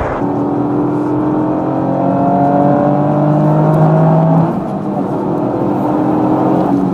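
Toyota GR Yaris's 1.6-litre turbocharged three-cylinder engine pulling under acceleration, its note rising slowly in pitch. It dips briefly about four and a half seconds in, then climbs again before cutting off near the end.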